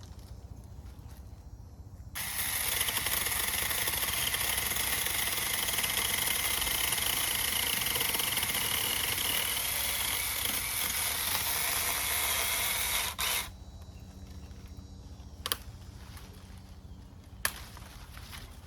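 Mini chainsaw running steadily with a high whine for about eleven seconds, then cutting off abruptly, followed by two sharp clicks.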